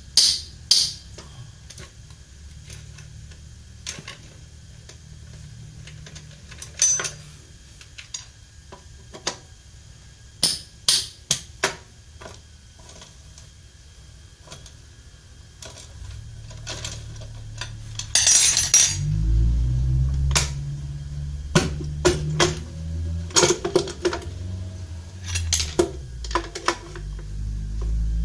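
Scattered sharp metallic clinks and knocks of hand tools and loose bolts as a scooter's CVT cover is unbolted. In the second half a low rumble joins the clinks.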